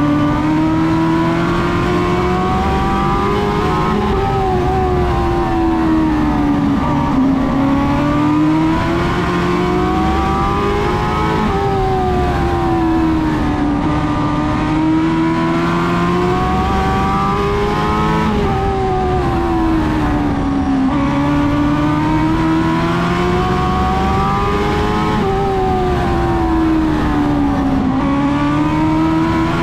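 Dwarf race car engine at racing speed, revving up and backing off in a repeating cycle about every seven seconds as the car runs laps of the oval.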